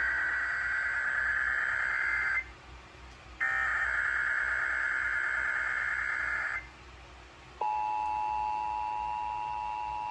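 Emergency Alert System SAME header for a required weekly test: two screechy digital data bursts of about three seconds each, a second apart. About seven and a half seconds in, a steady two-tone attention signal begins.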